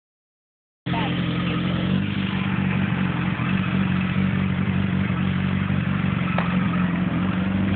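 Campagna T-Rex three-wheeler's motorcycle engine running at a steady idle while the car creeps along slowly.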